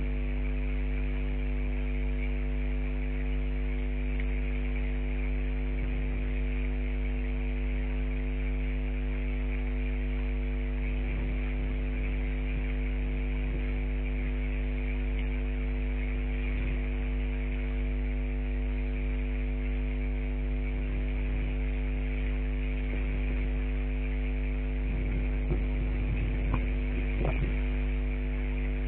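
Steady electrical mains-type hum with a stack of even overtones under a constant hiss, and a few faint knocks near the end.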